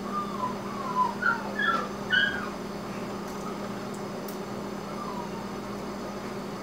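Chesapeake Bay Retriever puppy whimpering: a run of short, high, wavering whines in the first two and a half seconds, and one faint whine about five seconds in.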